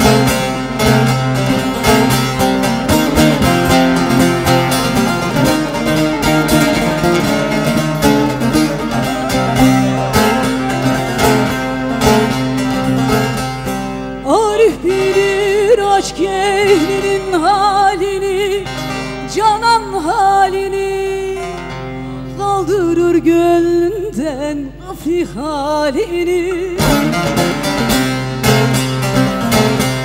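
Bağlamas (Turkish long-necked saz) strummed in a fast, dense instrumental passage. About halfway through the strumming drops away to a low steady drone, and a woman sings a slow, ornamented folk-song line with wavering vibrato. Near the end the full strumming comes back in.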